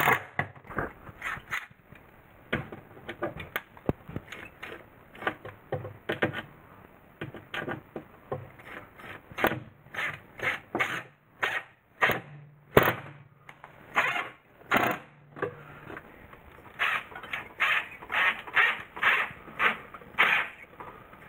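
Cordless drill driving screws into pine boards in many short bursts of the trigger, coming faster and more evenly near the end.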